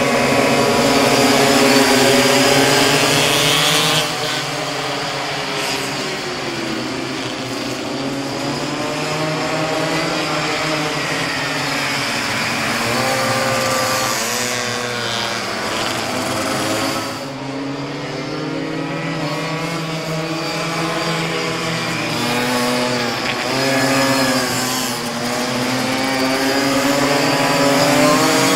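A pack of small two-stroke minimoto racing engines revving hard as the bikes pull away from the start grid together. Then engines pass by, their pitch rising and falling repeatedly as the riders open and close the throttle through the corners.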